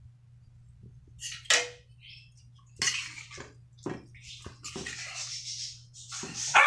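A metal spatula clanks and scrapes against a wok as glass noodles are stirred into boiling chicken broth, with the liquid sloshing. It starts about a second in with a few knocks and becomes steady stirring from about three seconds on.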